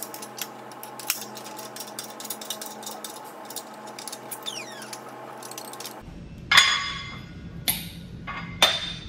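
Metal tooling and parts being handled at a hydraulic shop press. Light scattered clicks at first, then three loud metal clanks in the last three seconds.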